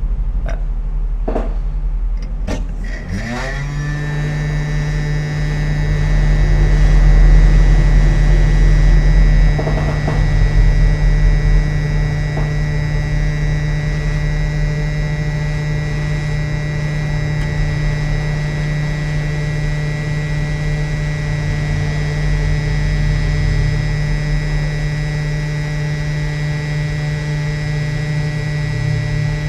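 Quick 857D hot air rework station blower spinning up about three seconds in after a few clicks, then running steadily with a constant hum while it blows hot air on the phone board to melt the solder under a component.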